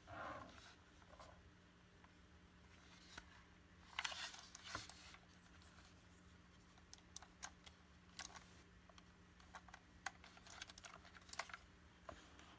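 Faint, scattered clicks and taps of gaming keypad keys being pressed: a quick cluster about four seconds in, then single clicks every second or so, over a faint steady low hum.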